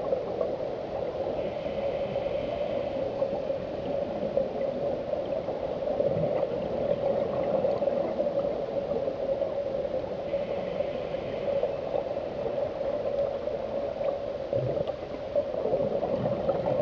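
Underwater sound picked up by a compact camera in a dive housing: a steady hum with muffled water noise, and a faint hiss twice, about eight seconds apart.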